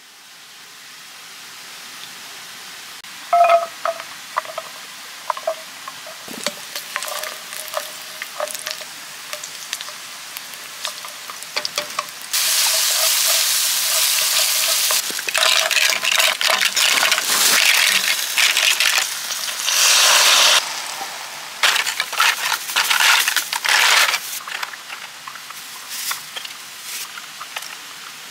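Beef sizzling on a hot camping grill. The sizzle grows loud about twelve seconds in as pieces go on, then surges again and again over steady crackling. There is a short ringing clink about three seconds in.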